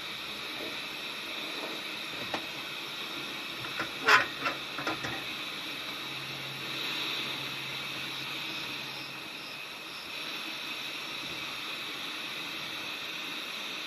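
Gas camping stove burner running under a pot of water with a steady hiss. A few short knocks come about four to five seconds in, the loudest just after four seconds.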